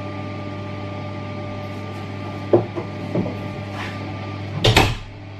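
Someone moving about a small bathroom: a few light knocks in the middle and a louder bang near the end, a door or fitting being handled, over a steady hum.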